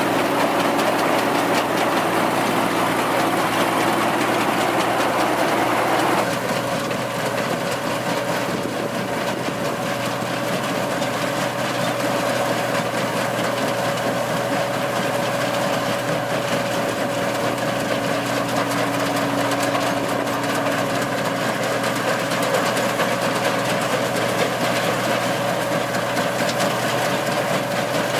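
Tracked combine harvester's diesel engine and threshing machinery running steadily. The sound shifts abruptly about six seconds in, after which a steady whine runs over the engine.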